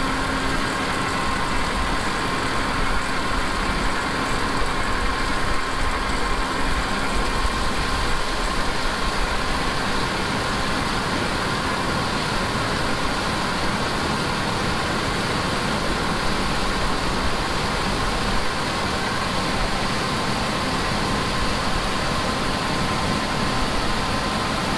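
John Deere combine harvester running steadily while harvesting corn, its engine and machinery making an unbroken mechanical noise with a faint steady whine.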